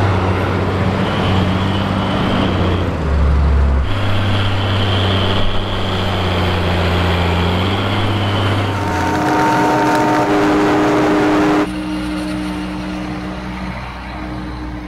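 Heavy diesel tractors and forage-harvesting machinery running during corn silage chopping: a steady engine drone with a high whine over it for stretches. The sound changes abruptly several times.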